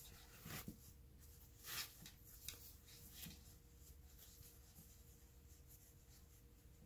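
Faint rustling of chunky wool yarn as hands pull a crocheted strap through the holes of a crocheted bag: a few soft scrapes in the first half, then near silence.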